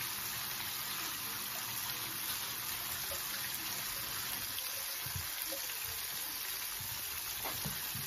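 Hot sunflower oil sizzling steadily around a whole flour-coated chicken deep-frying in a frying pan, with a few faint pops.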